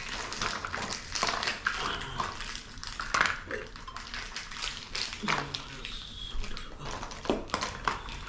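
Plastic Easter eggs and wrapped candy being handled at a table while the eggs are filled: a string of light plastic clicks and crinkling wrapper rustles.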